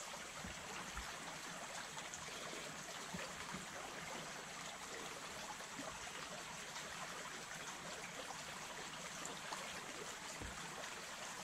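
River water running steadily, an even rushing hiss, with a few faint small ticks.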